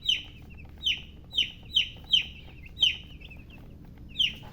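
Baby chicks peeping: short, high chirps that fall in pitch, about seven of them at uneven intervals.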